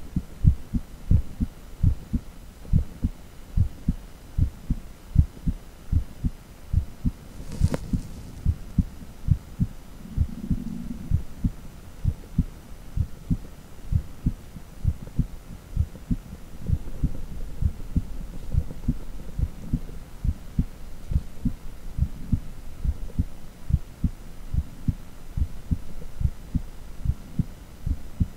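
Heartbeat sound: a steady, even rhythm of low thumps, with a single sharp click about eight seconds in.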